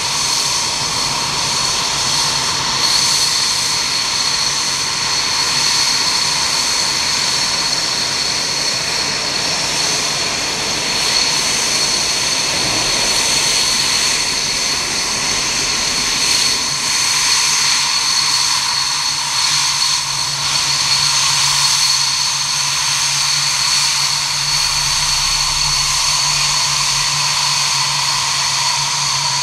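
Dassault Mirage 2000 fighters' SNECMA M53 turbofans running at low power on the ground while the jets taxi: a steady high-pitched turbine whine over a constant jet rush.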